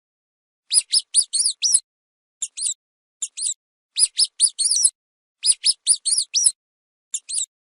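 Mouse squeaking: quick clusters of short, high-pitched squeaks, several in a row, then pairs, with silent gaps between the clusters.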